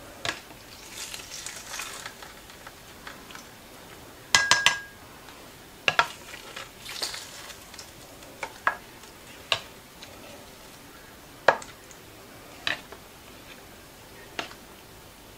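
A serving spoon clinks and scrapes against a baking dish and plates as potatoes and vegetables are dished out. The clinks are scattered, and the loudest is a short ringing cluster a little over four seconds in.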